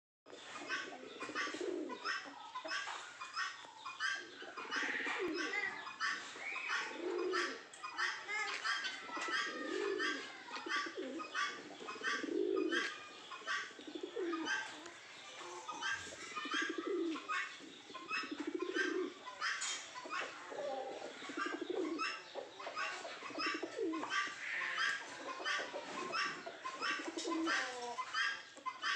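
Domestic pigeons, fantails among them, cooing again and again, each low coo swelling and fading about every one to two seconds. Over it runs a busy, unbroken chatter of short high chirps.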